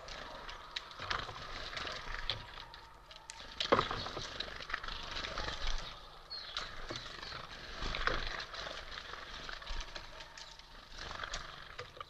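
Great tits at a feeder, landing, fluttering and pecking and hammering at seeds on wood and wicker: irregular taps and rustles with a sharper knock near four seconds. A short high bird call comes a little after halfway.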